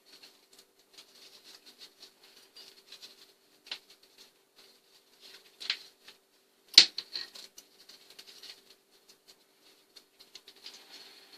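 Chainsaw chain links clicking and rattling as a twisted loose chain is handled and worked open by hand, with a sharper metallic clink about two-thirds of the way through.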